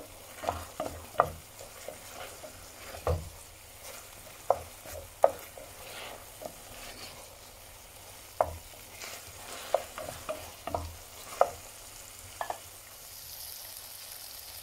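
Wild mushrooms stirred as they fry in oil in a glazed earthenware pan: irregular sharp knocks and scrapes of the utensil against the pan over a light sizzle. Near the end the stirring stops and the sizzle grows louder.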